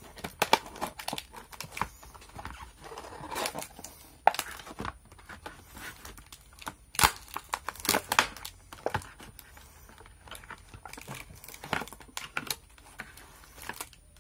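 Clear plastic blister packaging being pried apart and pulled open by hand: crinkling and crackling with a string of sharp snaps.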